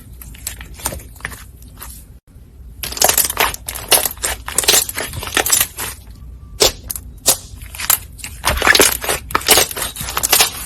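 Slime being squeezed and pressed by hand, giving dense crackling pops in bursts, with short pauses about two seconds in and again about six seconds in.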